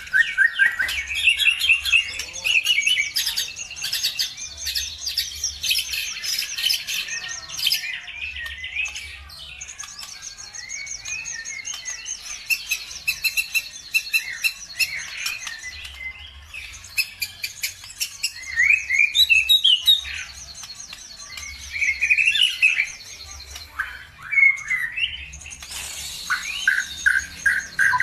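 Songbirds chirping and trilling rapidly in a dense, overlapping chorus of high calls, with loud bursts of song around 19 and 22 seconds in. It is a bird-lure recording of the kind played to provoke caged birds into singing.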